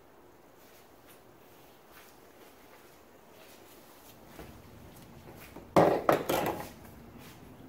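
Quiet room tone with a few faint ticks, then a sudden short clatter of two or three loud knocks about six seconds in.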